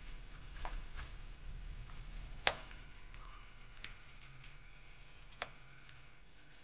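A few faint, sharp clicks or pops spaced irregularly, the loudest about two and a half seconds in, over a faint low rumble that fades away.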